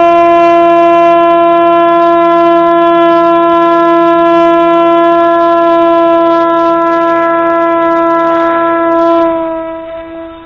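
Parrot Disco fixed-wing drone's electric motor and propeller held at full launch power: a loud, steady, high-pitched whine that fades about nine and a half seconds in.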